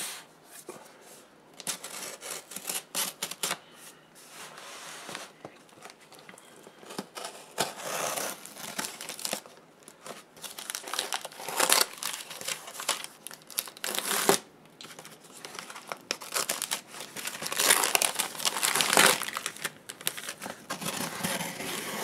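Packaging being unwrapped by hand: irregular crinkling and rustling of wrapping material with brief louder crackles, as a shipped parcel is opened.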